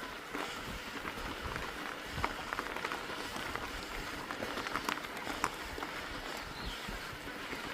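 Mountain bike being ridden: a steady rush of wind and tyre noise with scattered clicks and rattles.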